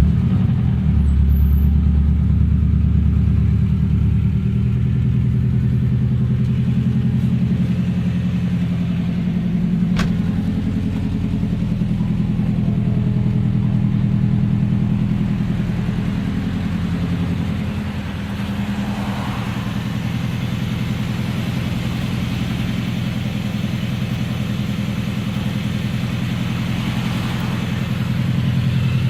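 Subaru EJ20K flat-four boxer engine idling just after start-up, with the knock that its owner is recording it for. Its idle settles a little lower about eighteen seconds in, and there is one sharp click about ten seconds in.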